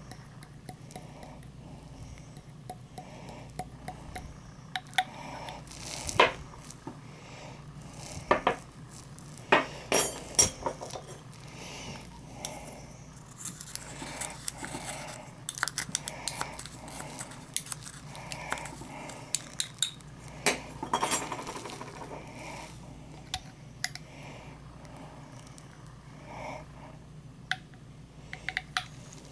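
Glass and metal clinking and scraping: a small glass beaker tapped against the mouth of a glass jar and a metal rod scraping and knocking inside the beaker as white powder is tapped out. Irregular sharp clinks with short scrapes between them.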